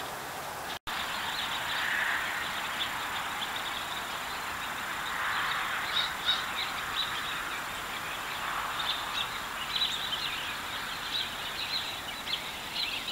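Trail-camera outdoor ambience: a steady hiss with a faint high electronic whine, light ticking and rustling, and a few faint bird calls. The sound cuts out completely for an instant just under a second in.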